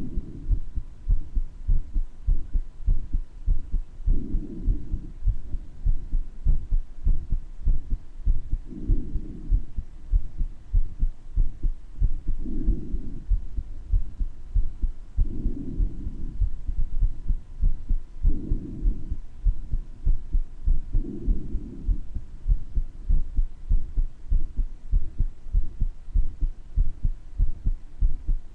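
Heartbeat heard through the chest: a steady train of low thumps from a heart with a murmur. Soft breath sounds rush in about every three to four seconds and stop a little over twenty seconds in.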